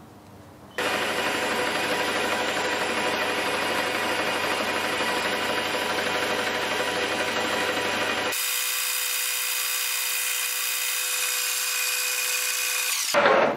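Metal lathe running under a 0.5 mm turning cut, a steady whir mixed with the hiss of the tool cutting metal, starting about a second in. About eight seconds in the sound changes abruptly to a thinner, steady hum with a couple of held tones, and it stops just before the end.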